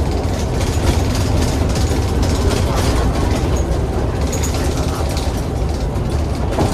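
Cummins ISBe185-30 diesel bus engine running with a steady low rumble, mixed with road noise and the continual small rattles of the bus body.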